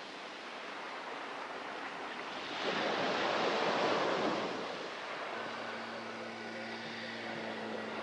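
Sea surf washing over a pebble beach, one wave swelling and breaking about three seconds in. From a little past halfway a steady low engine hum joins the surf: the outboard motor of a small open boat running through the waves.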